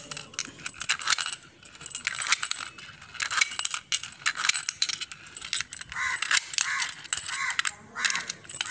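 Key being turned in a stainless-steel door safety lock, with repeated sharp metal clicks and clinks as the lock's bolt is worked.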